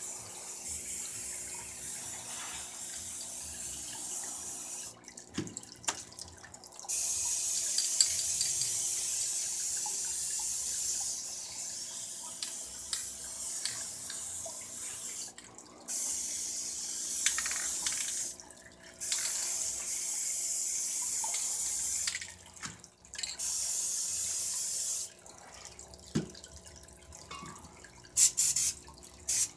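Aerosol spray paint cans hissing in long sprays of several seconds each, with brief pauses between them, ending in a run of quick short bursts.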